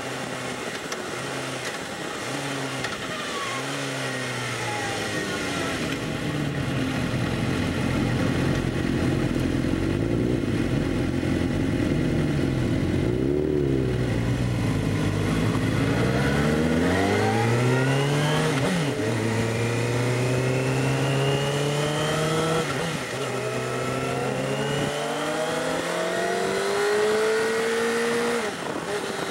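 Sport bike engine heard from on board: it slows through downshifts, runs low for a while, then pulls away about halfway through, climbing in pitch and dropping at each of three upshifts, with a steady rush of wind.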